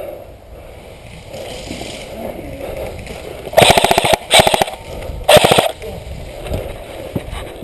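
Airsoft gun firing three short full-auto bursts of rapid clicks, loud and close, about halfway through, with low rustling around them.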